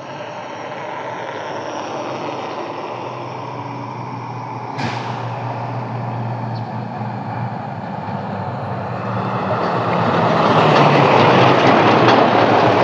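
Heavy diesel truck approaching and passing close by, its engine growing steadily louder and reaching its loudest in the last couple of seconds. A single sharp click about five seconds in.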